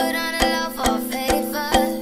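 Background music: a bright pitched melody over a steady beat of a little over two beats a second.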